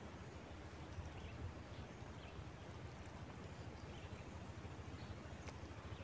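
Quiet outdoor ambience at open water: a steady low rumble with faint high chirps every so often.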